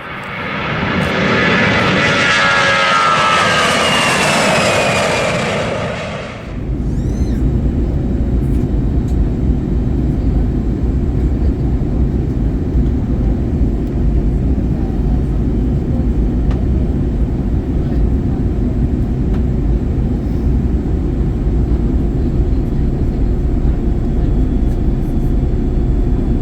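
A loud jet rush with a whine falling in pitch, as of a jet passing, for about six seconds, then an abrupt cut to the steady low rumble of the Airbus A321's cabin in flight.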